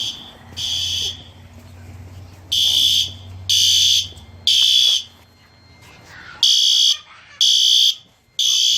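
Fire alarms sounding the temporal-three evacuation pattern: three half-second high-pitched blasts about a second apart, a pause of about a second and a half, then three more.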